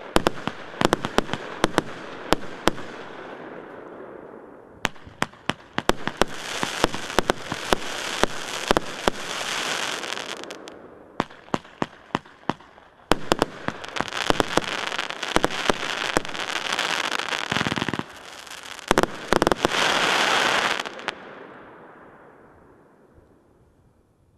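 Multi-shot consumer firework cake firing: a rapid string of sharp shots and bangs over dense crackling, in two long volleys, dying away over the last few seconds.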